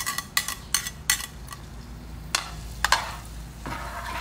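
Metal utensils clinking sharply against a pan and dishes several times, then garlic going into hot oil in a wok and starting to sizzle near the end.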